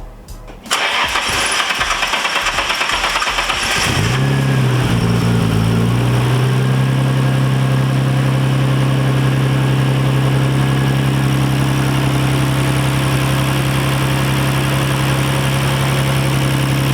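Nissan Skyline R32 GT-R's RB26 twin-turbo straight-six being started: the starter cranks for about three seconds, the engine catches and revs unevenly for a couple of seconds, then settles into a steady idle. This is the first start after refitting the original fuel injectors to cure a misfire, and it runs a lot better.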